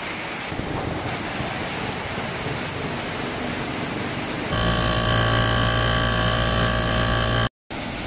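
Steady rain falling on a wet street. About four and a half seconds in it cuts to a louder, steady machine drone made of several constant tones, which runs for about three seconds.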